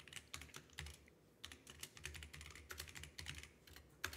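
Typing on a computer keyboard: quick, irregular runs of faint key clicks with soft thuds as the keys bottom out.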